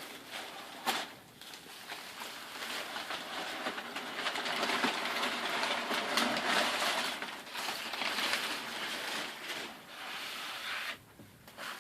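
Gift packaging being handled and torn open: a continuous crackling rustle of paper or plastic wrapping with many small crackles. It grows busier in the middle and dies away near the end.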